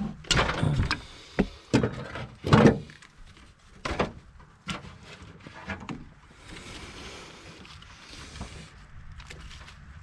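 Knocks, clicks and scrapes of hands and parts being worked in a pickup truck's engine bay as spark plug wires and fittings are pulled off, busiest in the first few seconds with the sharpest knock about four seconds in, then a softer rustling.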